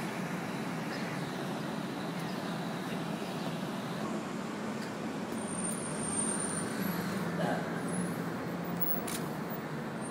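Steady city traffic noise: a continuous hum of street traffic.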